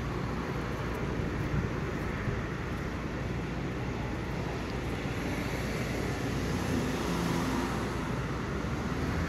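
Steady low rumble of vehicle engines and road traffic, with no distinct events.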